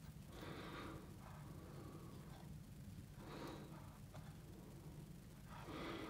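A man's faint breathing, three slow breaths, over a low steady hum.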